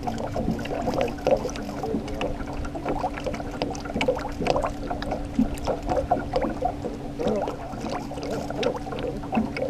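Water lapping and splashing irregularly against the hull of a small aluminium fishing boat, over a steady low hum.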